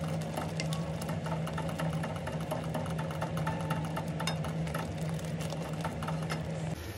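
Thick tomato-onion masala sputtering in a stainless steel kadhai over raised heat as a wooden spatula stirs and scrapes it, many small ticks and pops over a steady low hum. The masala is being cooked down until the oil separates.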